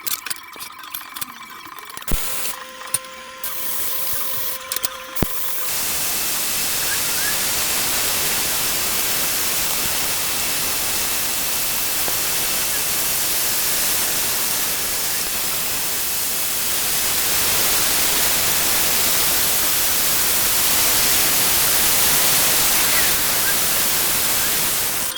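TIG welding arc on stainless steel, a steady hiss that starts about five seconds in and holds for about twenty seconds, after a few short clicks and ticks.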